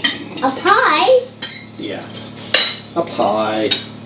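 Cutlery clinking and scraping against dinner plates during a meal, with several sharp clinks, and voices talking in between.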